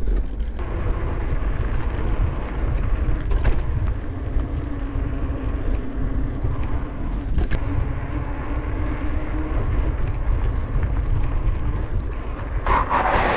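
Wind rushing over a bike-mounted camera microphone as a bicycle rolls along on tarmac, a steady low rumble. Near the end a sudden, louder rush of noise comes in.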